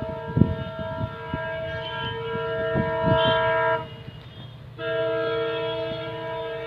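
Diesel locomotive (WDP4D) horn sounding two long blasts, the first about three and a half seconds long and the second starting about a second after it ends, over a steady low rumble.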